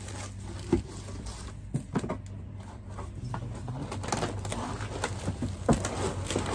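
Cardboard box and packing pieces rustling and knocking as hands rummage through them, over a low steady hum.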